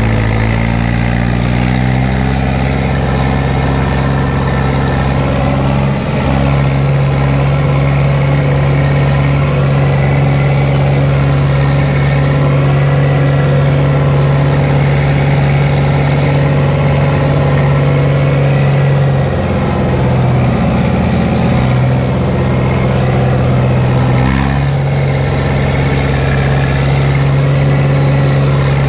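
Fiat 70-66 tractor's diesel engine running steadily while driving a mower, heard from inside the cab. The engine note sags briefly about six seconds in, and again for several seconds past the middle before it picks back up.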